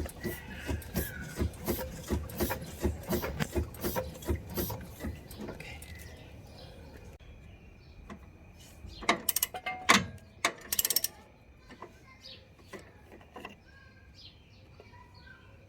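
Ratchet wrench clicking in quick, even strokes, about three a second, for the first five seconds, then a few louder clattering metal knocks about nine to eleven seconds in, while working on a car's suspension stabilizer link nuts.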